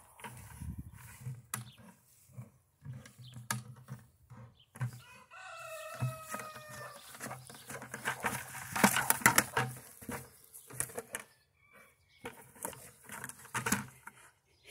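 A pit bull biting and knocking about an empty white plastic 5-gallon pail, giving irregular hollow plastic clatters and knocks that are loudest about nine seconds in. A drawn-out, slightly falling call sounds once about five seconds in.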